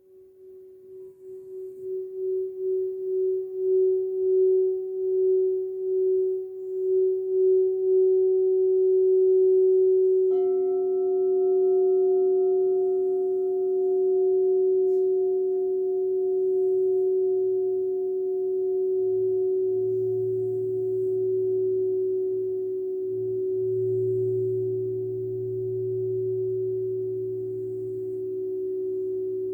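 Crystal singing bowl tones. One clear tone swells in with a slow wavering pulse. About ten seconds in, another bowl is struck, adding a lower and a higher tone that ring on together with it. A deep low tone joins later.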